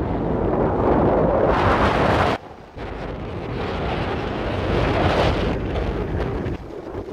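Wind buffeting the microphone on the open deck of a moving CityCat catamaran ferry. The gusts cut off sharply about two and a half seconds in, build again, and drop near the end, over the ferry's steady low rumble.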